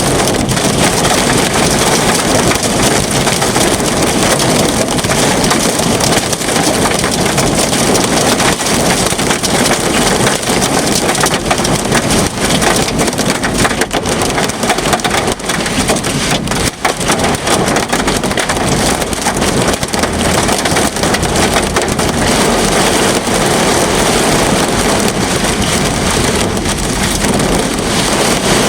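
Heavy rain pelting a car: a dense, steady crackle of drops striking the roof and glass.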